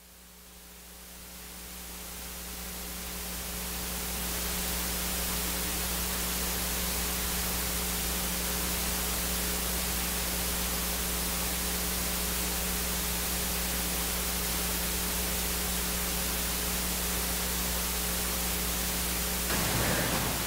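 Steady, even hiss with a low electrical hum under it, swelling up over the first four seconds and then holding level.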